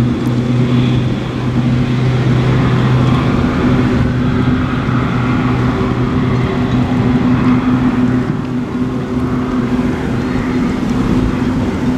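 Twin outboard motors of a 24-foot Boston Whaler rescue boat running at speed, a steady engine hum over the rush of its wash and spray.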